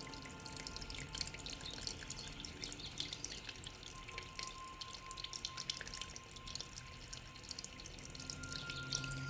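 Water dripping and trickling in many small, quick splashes, with the faint lingering hum of a singing bowl underneath. Near the end a new bowl tone starts to swell in.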